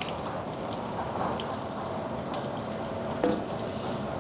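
Fluid running down out of the engine bay into a drain pan, a steady trickle and spatter of liquid.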